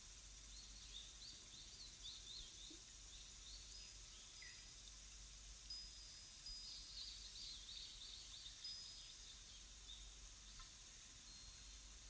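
Faint birdsong: two bursts of rapid high chirping, one near the start and one in the middle, with a few short whistled notes between, over a soft steady hiss.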